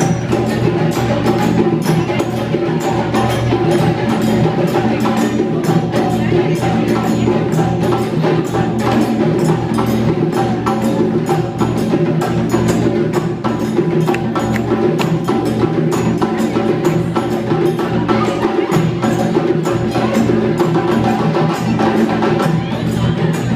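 Senegalese sabar drums playing a fast, continuous rhythm of sharp stick-and-hand strokes, over steady sustained tones.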